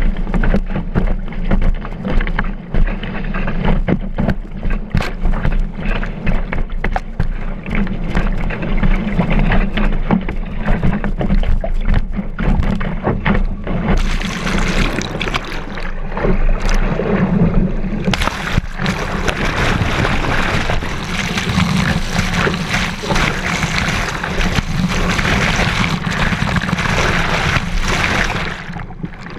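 Kiteboard planing across choppy water, heard from a camera mounted on the board: wind buffeting the microphone and repeated slaps of the board on the chop. About halfway through, rushing spray over the camera becomes a loud, continuous hiss, which cuts off suddenly near the end as the camera goes under the water.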